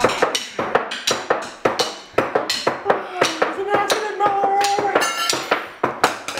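Drumsticks beating a fast rhythm on a set dining table and the plates and cups on it, with sharp strikes several times a second. A voice holds a sung note over the beat for a couple of seconds in the middle.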